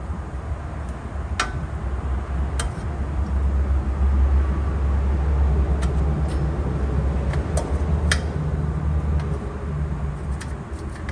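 A handful of sharp metal clinks as a rear wheel hub assembly and its brake backing plate are handled and worked off the axle shaft, over a steady low rumble that swells in the middle.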